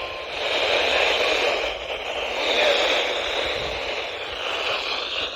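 Loud, steady static hiss from a weather radio receiver, with no voice on it. A steady tone cuts off right at the start.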